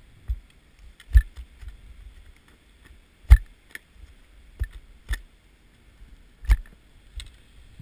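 Scattered sharp knocks and clicks, about seven in all, the loudest a little past three seconds in, from ski gear (skis, boots and poles) shifting about on snow, picked up close by a head-mounted action camera.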